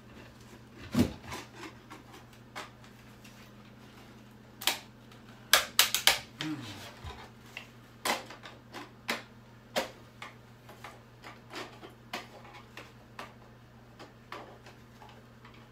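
Irregular clicks, taps and knocks of a boombox's plastic casing and parts being pried and worked loose with hand tools, with a quick run of louder knocks about six seconds in. A steady low hum runs underneath.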